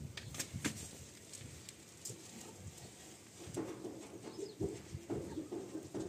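Quiet, low bird calls repeating through the second half, with a few sharp ticks about half a second in.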